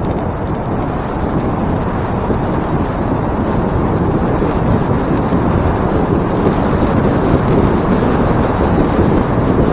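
Wind buffeting the microphone, a loud, steady rushing rumble with no distinct events, as from a camera carried on a moving bicycle.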